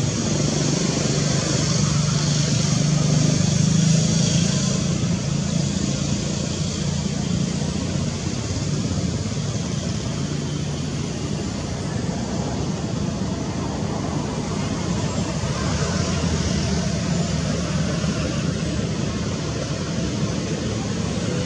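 Steady outdoor rumble and hiss of distant road traffic, swelling a few seconds in as a vehicle passes and then settling back; no monkey calls stand out.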